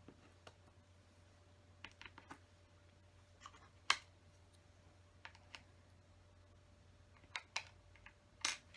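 Small plastic LEGO pieces clicking and tapping as they are picked up and pressed into place. The clicks come irregularly, singly and in small clusters, with the sharpest about four seconds in.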